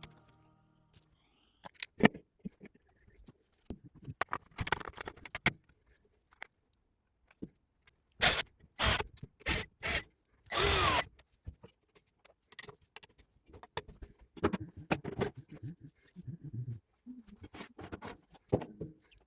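Hand work on the parts of a Hilti TE 70 breaker drill: irregular clicks, taps and scraping of metal parts and tools, with a few short rushing sounds about eight to eleven seconds in.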